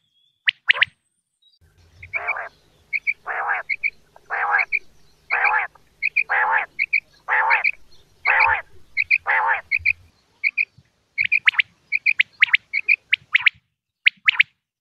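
Common quail calling: a few sharp high notes, then about eight harsh, longer calls roughly once a second, with pairs of short high chirps between them. A faint low hum runs under these calls, and from about ten seconds in the bird switches to quicker runs of sharp, high notes.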